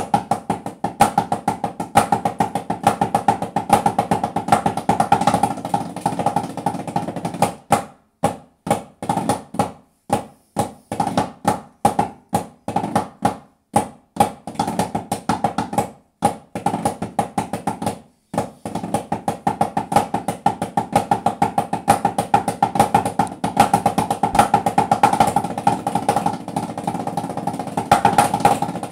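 Italian parade drum (tamburo) played with sticks, practising marching and flag-waving cadences: fast strokes and rolls, thinning to spaced strokes with short pauses in the middle stretch before picking up into dense rolling again.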